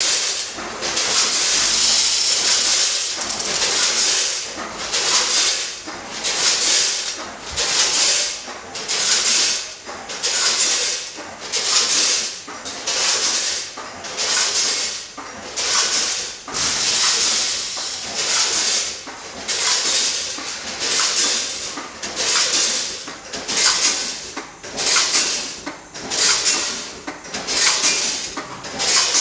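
Jelly bean weighing and tub-filling line running: a rushing hiss repeats about once a second in a steady machine cycle.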